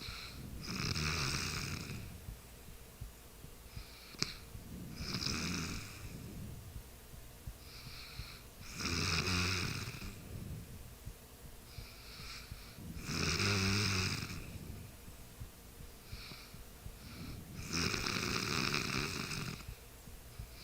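A sleeping person snoring in a steady rhythm: a snore about every four seconds, each a second or two long, with a softer breath between.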